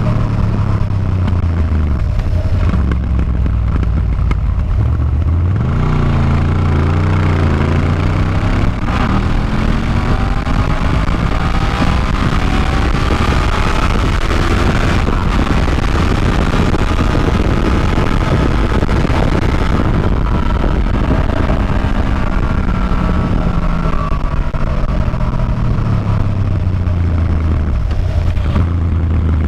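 Motorcycle engine running on the road. The revs climb about five seconds in and stay high through the middle, then fall away near the end as the bike slows, all over a steady rush of noise.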